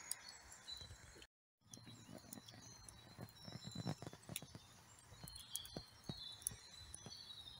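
Wood fire burning in a metal fire pit, crackling faintly with scattered small pops and snaps, and faint birdsong behind it. The sound drops out briefly about a second in.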